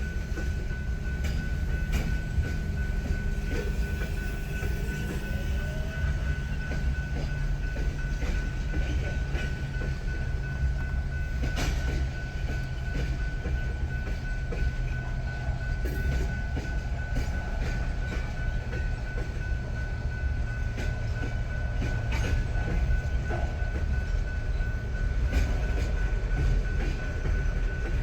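Freight train cars rolling steadily past, wheels clicking irregularly over rail joints over a constant low rumble. A steady high ringing tone runs throughout.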